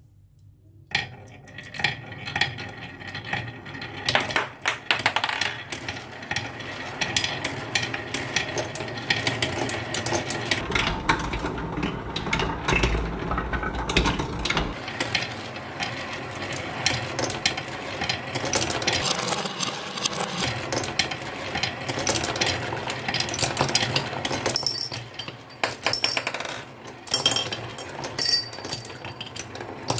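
Many marbles rolling and clattering down a wooden marble run, a dense stream of small clicks and knocks that starts about a second in and thins out a little near the end.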